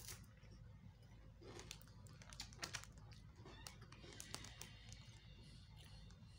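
Faint, irregular crisp crunches and clicks of a crunchy kaak biscuit stick being bitten and chewed, over a low room hum.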